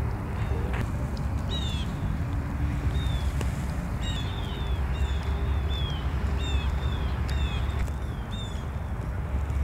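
Small birds chirping, many short falling chirps in quick succession, over a steady low rumble.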